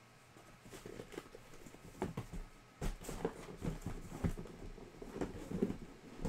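Cardboard hobby boxes being handled and pulled out of a cardboard shipping case: irregular rustling and scraping of cardboard and packing paper, with light knocks of box against box, starting about a second in.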